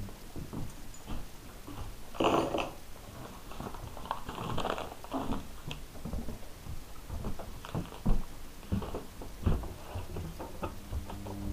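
Scattered knocks, clicks and rustles of handling and movement, with a louder, noisier scuffle about two seconds in.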